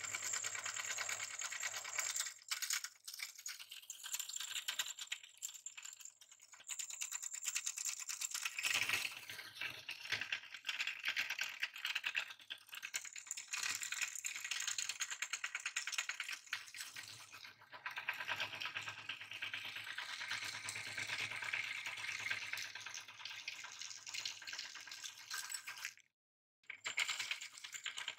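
Belt-driven meat grinder crushing hard lollipop candy: a dense, continuous crackling and rattling of the candy breaking up in the auger and grinder plate. A low hum from the running machine comes and goes, and the sound breaks off briefly near the end.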